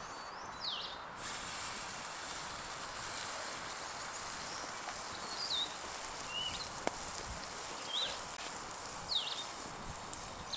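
Pancake batter sizzling in hot lard in a frying pan over a campfire, a steady hiss that gets stronger about a second in. A bird chirps short high notes over it several times.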